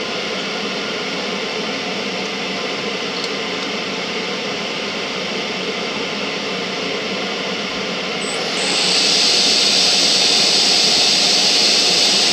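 Small bench metal lathe running steadily with its ER40 collet chuck spinning while a fired brass cartridge case is trimmed with a hand-fed high-speed steel bit. The running noise gets louder and more hissing about eight and a half seconds in.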